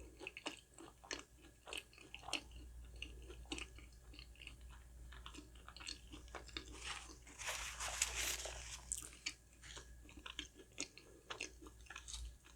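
Close-miked chewing of a crispy fried chicken croquette: scattered wet mouth clicks and crunches, with a denser crackling crunch about halfway through.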